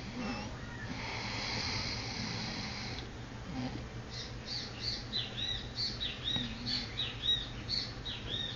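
A soft breathy hiss, then from about halfway a quick run of high chirps, about two or three a second, each rising and falling, like a small bird calling.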